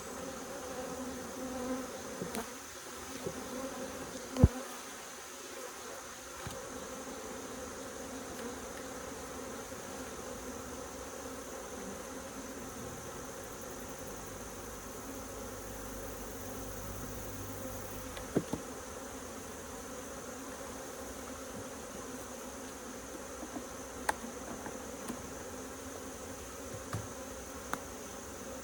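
Honeybees buzzing in a steady drone around an opened hive. The colony is agitated at being disturbed. A few sharp knocks sound over it, the loudest about four seconds in.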